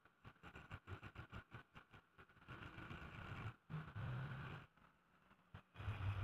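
Electric angle grinder with an abrasive disc grinding the steel blade of a golok machete, faint and choppy at first and getting louder about six seconds in.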